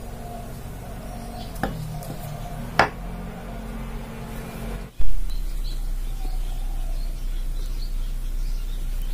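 Metal lid clinking against a glass teapot as it is lifted off, then a louder, briefly ringing clink as it is set down on a wooden board. About halfway through, a sudden thump gives way to a steady low hum with faint bird chirps.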